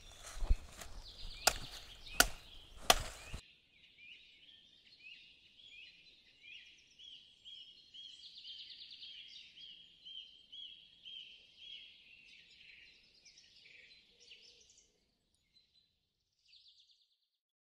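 Four sharp chopping strikes of a blade, each under a second apart, cutting the material for a fish-and-shrimp trap. Then the chopping cuts off abruptly and a bird chirps in a high, repeating phrase for about twelve seconds before it fades out.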